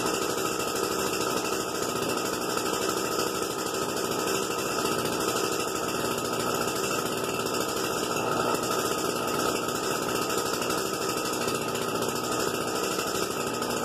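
Echo SRM-225 string trimmer's small two-stroke engine idling steadily after a cold start, its trimmer head having flown off.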